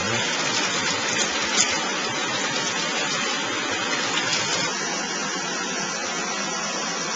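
Steady rush of running water: an even, unbroken hiss, with a few faint ticks over it.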